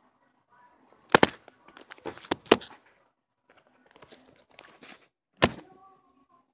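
Several sharp knocks and thuds, one about a second in, two close together a little later and one near the end, among rustling and handling noise.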